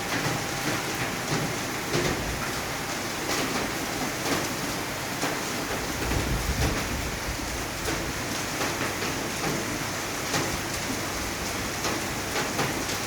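Steady heavy rain falling, with many sharp drops and drips hitting surfaces close by. A low rumble comes through about halfway.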